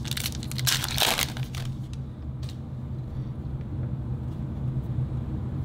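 Trading-card pack wrapper being torn open, with crinkling for about the first second and a half. A steady low hum runs underneath.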